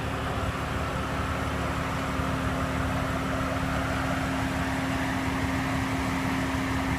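Steady mechanical hum with a single constant low tone, unchanging throughout.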